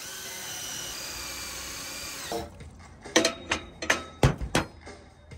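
Cordless drill running steadily as its bit bores into the metal side rail of a van roof rack, stopping after about two and a half seconds. A series of sharp knocks and clanks on the metal rack follows.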